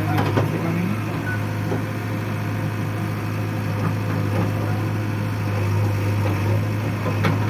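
A JCB backhoe loader's diesel engine running steadily with a low, even hum, with a couple of short knocks just after the start and near the end.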